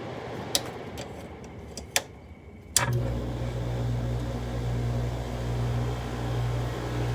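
Window air conditioner running on fan, then three sharp clicks of the controls; with the last click, about three seconds in, its rotary compressor kicks on with a steady low hum.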